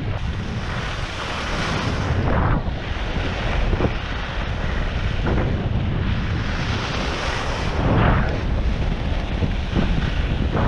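Wind buffeting a skier's action-camera microphone during a fast run, a steady loud rush with a heavy low rumble. Swells of skis scraping and carving on groomed snow come every few seconds as the turns are made.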